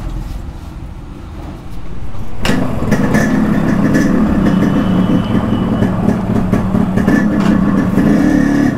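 Yamaha RX100's two-stroke single-cylinder engine, which comes in sharply about two and a half seconds in, after a quieter low rumble, and then runs steadily.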